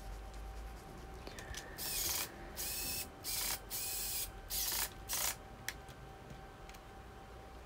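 Screws being driven one by one into the metal frame profiles of an LCD TV: several short bursts of whirring, scraping noise, each under half a second, from about one and a half to five and a half seconds in.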